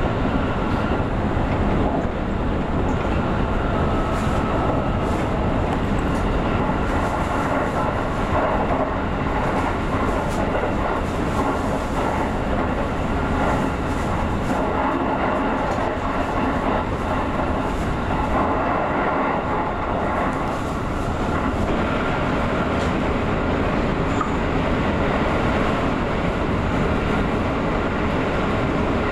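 A JR Central 313 series electric train running at speed, heard from inside the driver's cab: steady running noise of wheels on rail and motors, with occasional light clicks.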